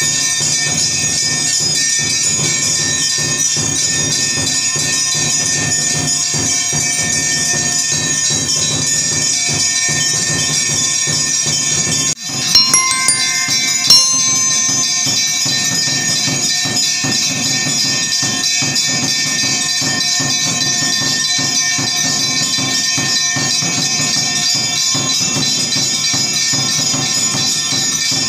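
Steady background music with held, bell-like tones. It breaks off briefly about twelve seconds in and resumes with a few louder strikes.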